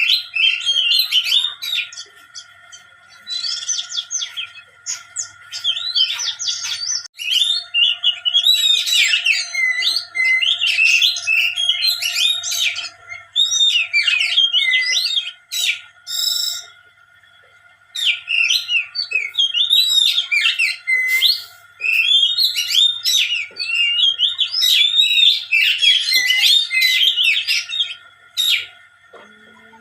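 A songbird singing in long bouts of rapid, varied chirps and twitters, with short pauses between bouts.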